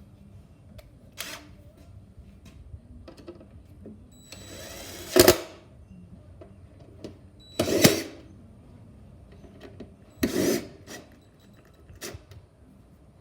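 Power drill or driver run in three short bursts, with light clicks and knocks of handling in between.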